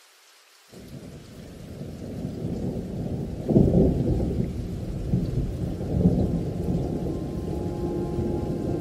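Rumbling thunder from a recorded storm effect that opens the background music. It starts suddenly under a second in, builds, and swells loudest about three and a half seconds in and again near six seconds, with sustained music notes entering near the end.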